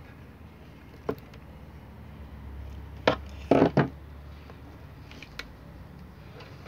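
Long-nose pliers cutting and handling the wires of an LED floodlight's driver: a few sharp clicks, the loudest a quick cluster about three and a half seconds in, over a steady low hum.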